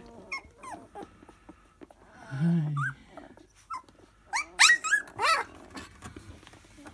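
Young Siberian husky puppies whining and yelping in short, high cries that slide up and down in pitch, with a brief low growl about two and a half seconds in and a louder burst of yelps a couple of seconds later.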